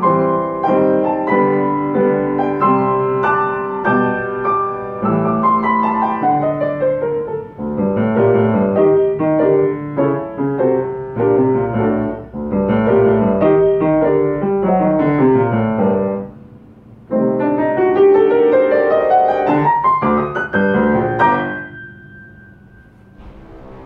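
Solo upright piano playing a fast scherzo: quick notes and chords with falling runs, a brief break about two-thirds of the way in, then a rising run up to a final high note that rings and dies away near the end.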